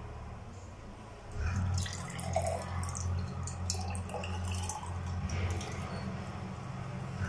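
Cooled orange syrup, thickened with cornflour, being poured through a strainer, dripping and splashing into the bowl below, with a low steady hum starting about a second and a half in.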